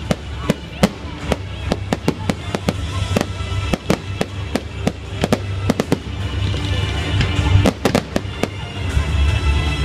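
Fireworks display: aerial shells bursting and crackling in quick succession, about three sharp bangs a second, with the densest, loudest cluster about seven to eight seconds in. Music plays steadily underneath.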